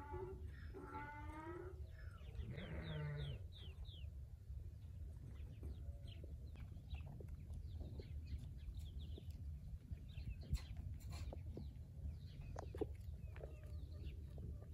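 A flock of sheep and goats bleating. Two drawn-out bleats come in the first few seconds, then scattered short chirps and clicks over a steady low rumble.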